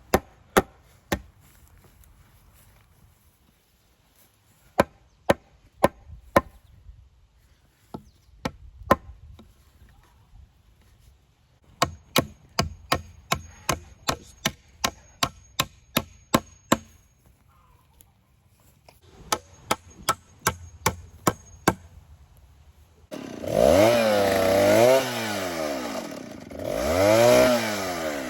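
Runs of sharp striking blows, about three a second in the longest run, as the cedar brace is worked. About 23 seconds in, a chainsaw starts running loudly, its pitch rising and falling as it revs.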